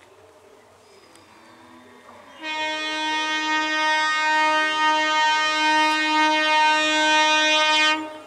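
EMU local train's horn sounding one long, steady blast on a single pitch, starting about two and a half seconds in and cutting off sharply near the end.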